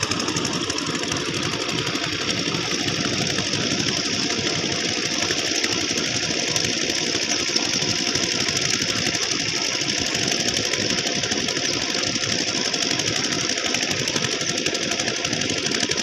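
Farm tractor's diesel engine running steadily while pulling a rotary tiller through wet soil, with a rapid, even pulsing beat.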